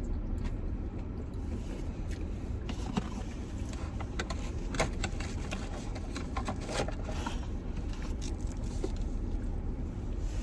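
Eating sounds: chewing and the handling of fast food, with scattered short clicks and crackles, thickest in the middle, over a steady low hum.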